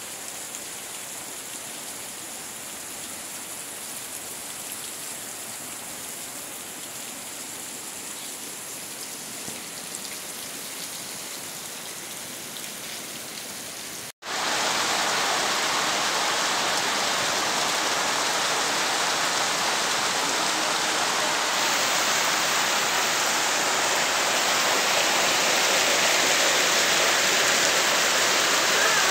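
Steady rain falling on trees and grass. About halfway through it gives way abruptly to a louder, denser downpour.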